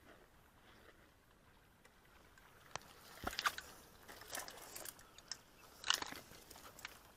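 Dry reeds and straw crunching and crackling as someone shifts about in a reed-covered duck blind. After a quiet start, scattered crackly bursts come in from about three seconds in.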